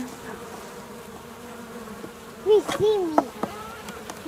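Package of honey bees buzzing with a steady hum. About two and a half seconds in come a few short, loud squeaks and clicks as a metal hive tool pries at the wooden package top.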